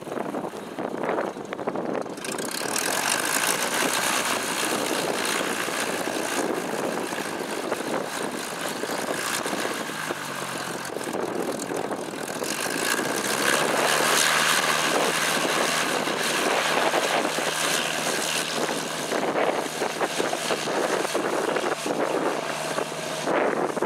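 Cessna 172N Skyhawk's four-cylinder Lycoming piston engine and propeller running steadily while taxiing on grass, growing louder about two seconds in and again around fourteen seconds in as power comes up for the takeoff roll.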